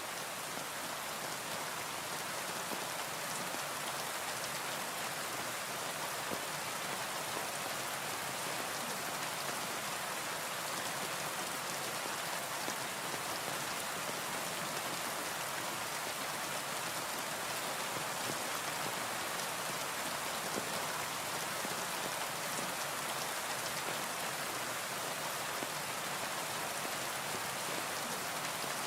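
Steady rain falling on a window: an even hiss with faint scattered drop ticks, unchanging throughout.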